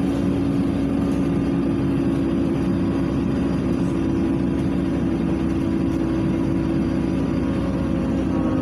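Inside a LiAZ 5292.67 city bus cruising at steady speed: the engine and drivetrain run with a steady low hum over road and tyre noise.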